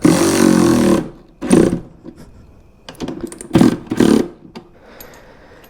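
Power drill running in short bursts, driving and snugging up saddlebag mounting bolts. The first burst lasts about a second and is followed by several shorter ones.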